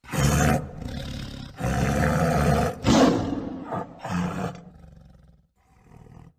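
Tiger roaring and growling: a string of four or so rough roars with lower growls between them, growing quieter toward the end.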